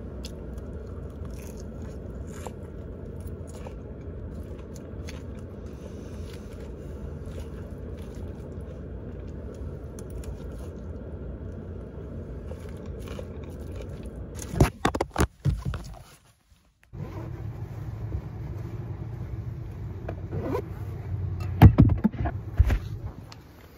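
A metal fork scrapes and clicks against a plastic food container while salad is eaten inside a car cabin, over a steady low rumble. There is a short run of louder knocks a bit past halfway, and more near the end.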